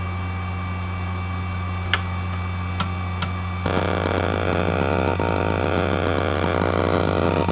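ExcelStor Technology CT210 10.2GB hard drive spinning with a steady hum, with a few single sharp clicks. A little over three and a half seconds in it suddenly breaks into loud, continuous rapid head seeking as the hdmotion test sweeps the actuator back and forth across the platters.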